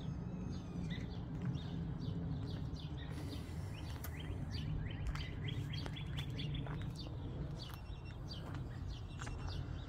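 Small birds chirping: many short, quick chirps in rapid runs, over a steady low rumble.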